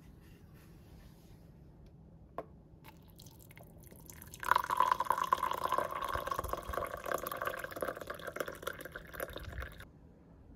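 Water running steadily, starting about four and a half seconds in and stopping abruptly about five seconds later, after a few faint clicks.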